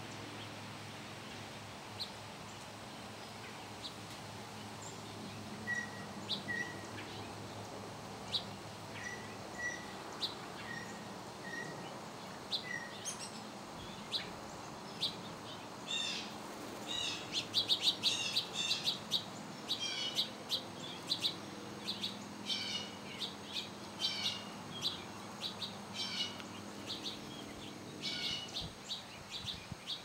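Small songbirds chirping: short, sharp chip notes, sparse at first, with a few soft paired whistles, then coming thick and fast from about halfway on, over a faint steady background hum.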